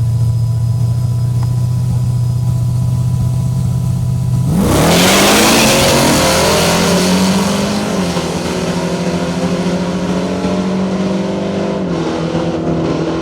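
Drag-racing trucks holding a steady engine note on the line, then launching about four and a half seconds in with a sudden loud surge of engine noise. The engine pitch climbs and drops back at gear shifts twice as they run down the track.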